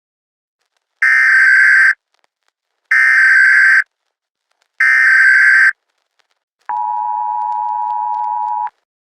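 Emergency Alert System SAME header: three one-second data tones with short gaps between them, followed by the EAS two-tone attention signal held for about two seconds.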